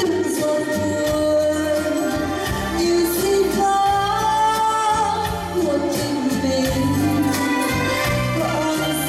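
Live band music: a female singer sings a Vietnamese ballad in long, gliding held notes over electronic keyboard accompaniment with a stepping bass line.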